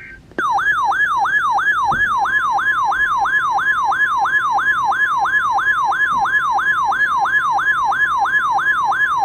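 Loud electronic siren-style alert tone announcing an incoming weather warning: a pitch that slides down and snaps back up about three times a second, over a steady tone. It starts about half a second in.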